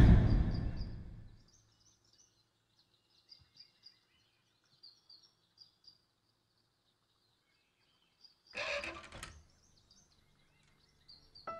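A boom from the soundtrack music dies away over the first second. Then it is quiet, with faint, high bird chirping repeating throughout. About nine seconds in there is one brief noisy rattle, and music starts again at the very end.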